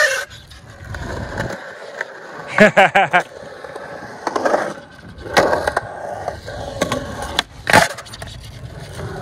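Skateboard wheels rolling over concrete skatepark surfaces, with several sharp clacks of the board striking the ground, near the start and again around the middle and toward the end.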